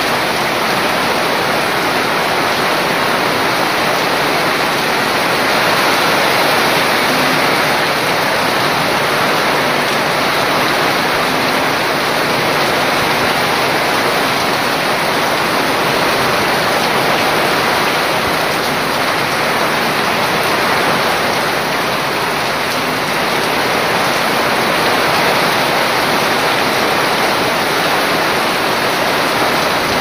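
Heavy typhoon rain falling steadily, with water streaming off a roof edge and splashing onto wet ground, a dense, even hiss throughout.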